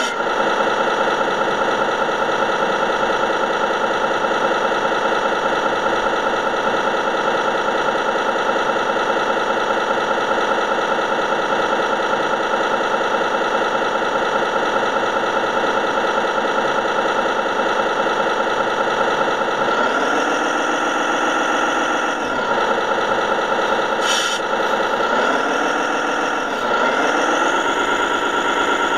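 Simulated truck-engine sound from a radio-controlled model truck's sound module, idling steadily. Its pitch swings twice in the last ten seconds, as if revving, and a single short click comes near the end.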